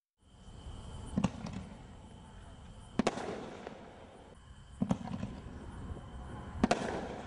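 Consumer fireworks artillery shells being fired: four sharp, loud reports about two seconds apart, each trailing off in a brief rumble and crackle.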